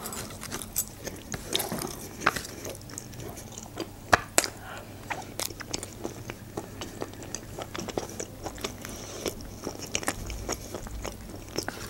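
Close-miked chewing of soft baked chicken-and-mushroom julienne: many small wet mouth clicks and smacks, one sharper click about four seconds in. Near the end a fork scoops more from the aluminium foil tray.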